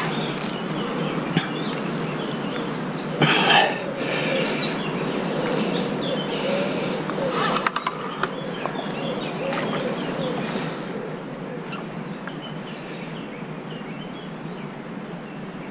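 Steady outdoor background noise with birds chirping, and a short louder noise about three seconds in.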